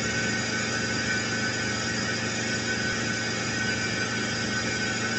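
Steady machinery running, a constant mechanical noise with a high whining tone over it.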